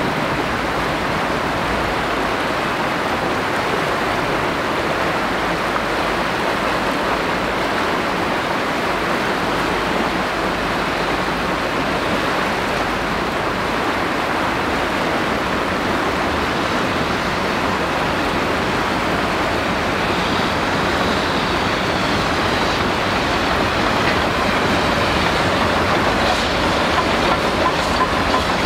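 A steady rushing noise that grows louder over the last several seconds as a narrow-gauge Garratt steam train approaches, with faint wheel clicks on the rails near the end.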